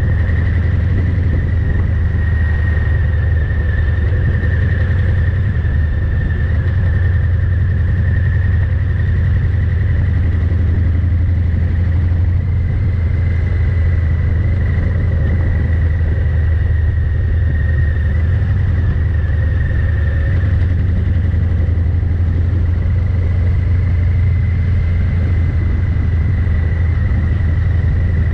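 Harley-Davidson Fat Boy 114's Milwaukee-Eight V-twin running steadily through a Vance & Hines exhaust, a deep even rumble. The recording is overloaded and distorted from the microphone gain being set far too high.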